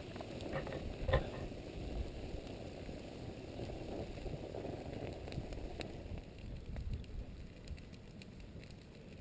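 Pahoehoe lava flow advancing over old lava and small plants, giving faint scattered crackles and ticks over a steady low muffled rumble, heard through a GoPro's waterproof housing.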